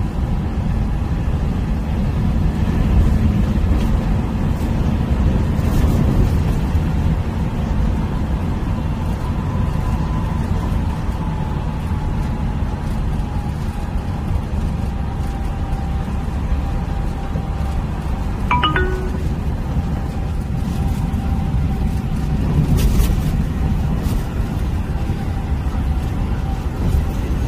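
Steady low road and tyre rumble of a car cruising at expressway speed, heard from inside the cabin, with a faint steady whine. A brief ringing sound cuts through about 18 seconds in.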